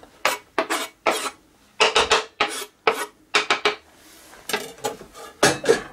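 Kitchen knife scraping diced egg off a plastic cutting board into a stainless steel bowl: a dozen or so short, irregular scrapes.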